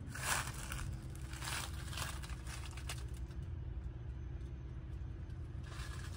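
Several short bursts of rustling handling noise, about half a second in, twice around a second and a half to two seconds in, and again near the end, over a steady low hum.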